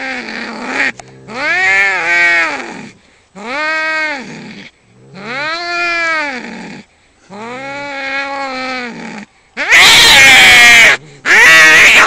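Domestic cats fighting: a run of long, drawn-out yowls that rise and fall in pitch, one after another with short pauses. Near the end they break into very loud, harsh screeches.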